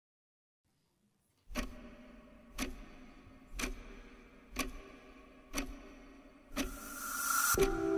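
Opening of a contemporary dance piece's music: a sharp tick about once a second, then a rising swell of hiss near the end that leads into a held chord.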